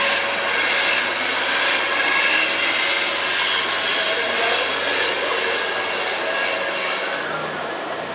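Five-axis CNC router's spindle milling a foam boat hull mould: a steady hiss of the cutter through the foam over a constant machine whine, easing slightly near the end.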